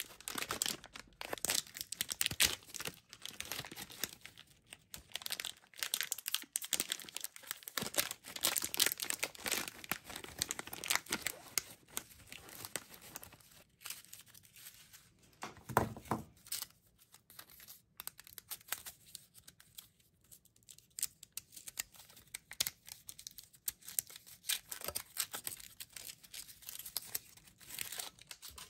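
Foil and plastic candy wrappers crinkling and tearing as Almond Roca is unwrapped: the pouch torn open, then the foil wrapper of a piece handled and peeled off. One duller bump near the middle.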